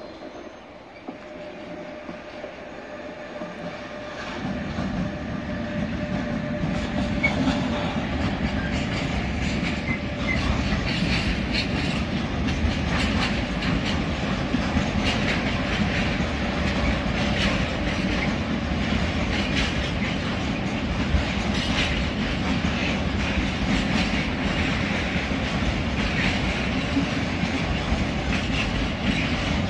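Freight train of tank wagons rolling past, hauled by an electric locomotive, with wheels clicking over the rail joints. It builds up over the first four seconds, then rumbles on steadily.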